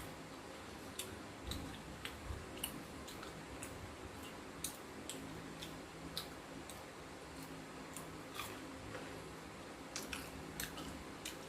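Close-up chewing of crispy fried basa fish in a crunchy batter and panko coating: irregular crisp crunches, roughly one or two a second.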